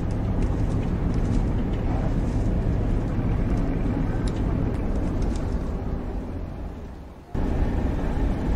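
Added city street traffic sound effect: car engines and traffic noise running steadily. The noise fades down near seven seconds in, then cuts back in abruptly at full level.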